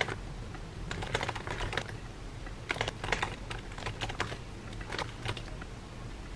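Typing on a laptop keyboard: quick runs of light key clicks broken by short pauses.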